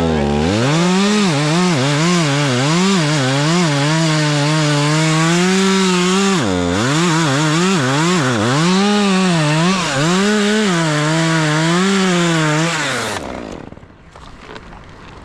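Stihl chainsaw running at full throttle through an oak cut, its engine pitch wavering as the chain loads up in the wood. The revs sag and recover about six seconds in, and near the end the engine winds down and stops.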